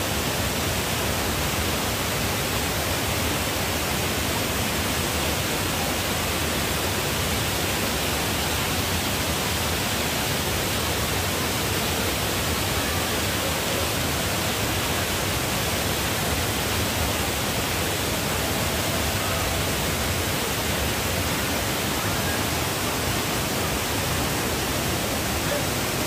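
Waterfall and fast-flowing river water rushing: a loud, steady, even rush with no breaks.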